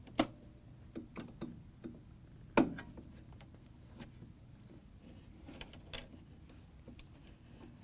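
Scattered clicks and knocks of a refrigerator water inlet valve and its metal mounting bracket being handled and pushed back into place, with two sharper knocks about a quarter second in and about two and a half seconds in and lighter taps between.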